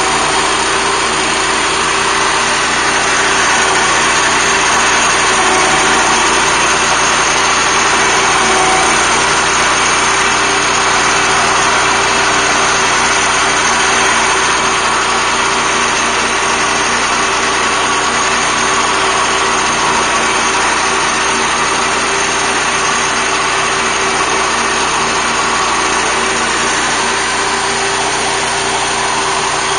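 BCS walk-behind tractor's gasoline engine running steadily at working speed, powering a Zanon 40-inch finish mower as it cuts grass.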